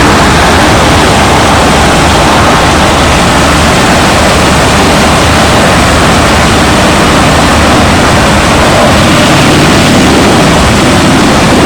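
Drum wood chipper running, loud and steady, a dense machine noise with no clear pitch.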